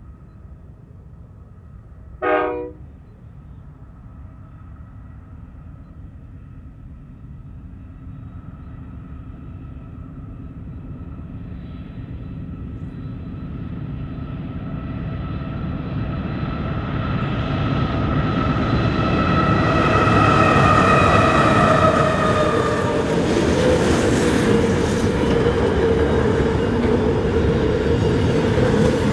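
Two GE C44aci diesel-electric locomotives, with GE 7FDL-16 engines, working under power as they approach. Their engine drone grows steadily louder to a peak about twenty seconds in, then gives way to the rushing rumble of container wagons rolling past. A brief loud blip sounds about two seconds in.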